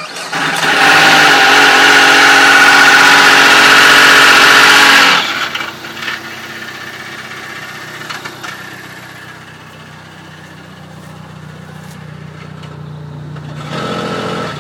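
Dodge SRT-4's turbocharged four-cylinder starting up, very loud with a high, many-toned whine for about the first five seconds, then settling to a steady idle, with a brief louder stretch near the end. It is the noise heard since a new OEM clutch went in, which the owner suspects comes from the throwout bearing or the clutch slave cylinder.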